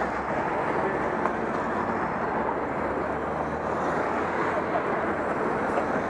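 Steady hubbub of a roadside crowd behind barriers, with race support vehicles (cars and a team van) driving past on the course.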